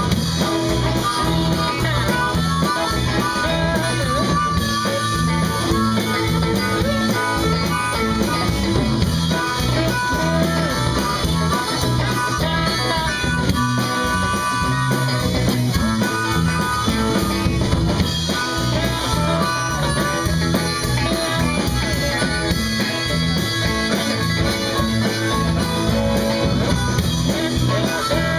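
Live blues-rock band: an electric guitar plays lead lines over bass guitar and drums with a steady beat.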